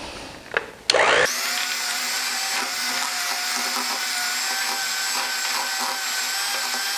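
Electric hand mixer switched on about a second in, then running with a steady whine as its beaters whip cream cheese and sugar in a glass bowl.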